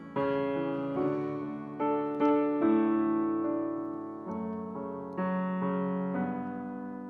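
Kawai ES6 digital piano playing the closing chords of a slow worship song, about eight chords struck one after another. The last chord, struck about six seconds in, is left to ring and fade.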